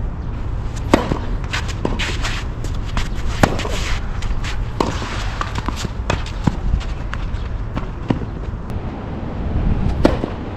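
Tennis rackets striking the ball in a rally, with the ball bouncing on the court: a sharp pop of a serve about a second in, a string of hits and bounces a second or two apart, and another serve struck near the end.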